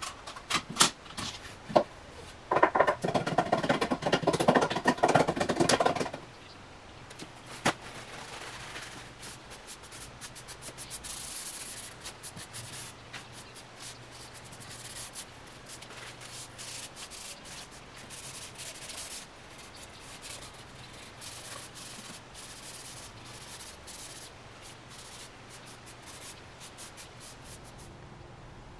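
Wood being rubbed with an abrasive by hand. It is loud for a few seconds starting about two and a half seconds in, then goes on as quieter, lighter scraping with small ticks.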